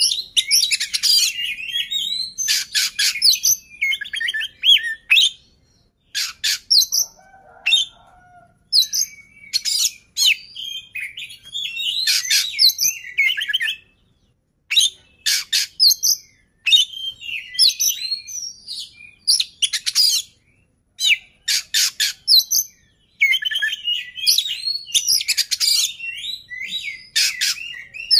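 Male Oriental magpie-robin (kacer) singing: varied phrases of whistles and fast rattling, chattering notes, broken by short pauses.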